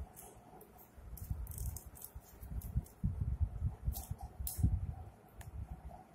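Plastic toy dolls being handled and moved about on a stone floor: muffled bumps and rustling, with three light clicks in the second half.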